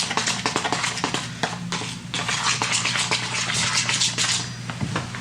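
Pancake batter being stirred in a bowl: a utensil scraping and clicking rapidly against the bowl, stopping about four and a half seconds in.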